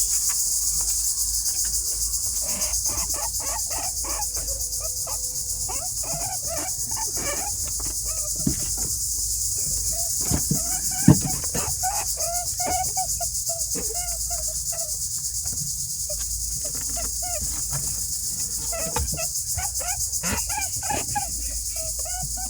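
Rabbits squeaking in short, repeated pitched calls, some in quick runs, over a constant shrill chirring of insects. A couple of sharp knocks stand out, the loudest about halfway through.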